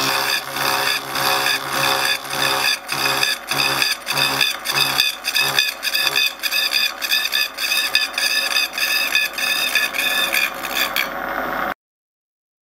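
Disc cutter on a horizontal milling machine cutting a slot through a metal block, a steady scraping, whining cut with a regular pulsing through the first half. It cuts off abruptly about a second before the end.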